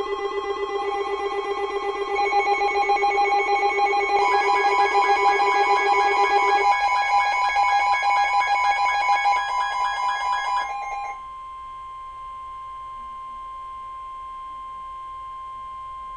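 Emergency alert tones: several layered electronic tones pulse rapidly, with a ringing like a telephone bell, and drop out in stages about 6.5 and 11 seconds in. A single steady tone just above 1 kHz then holds for about five seconds, the weather-radio warning alarm tone that precedes an Emergency Alert System message.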